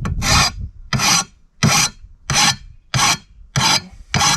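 A hand file rasping along the edge of a lawnmower cutting blade to sharpen it, in about seven even strokes, roughly three every two seconds.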